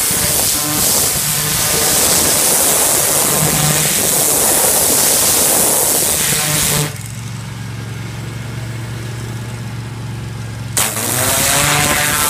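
Pressure washer blasting a concrete gate post: a hissing high-pressure spray over the steady hum of the washer's motor. About seven seconds in the spray stops and only the motor hum remains for about four seconds; then the spray starts again with a short burst.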